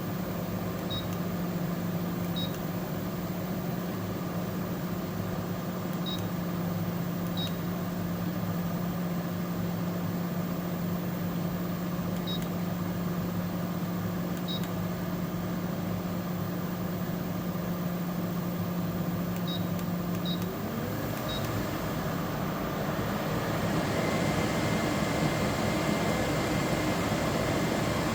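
A 12 V rooftop air conditioner running steadily with a low hum, just switched from eco to normal mode. About twenty seconds in, the hum drops out and the unit rises to a louder, higher running sound with a steady high whine.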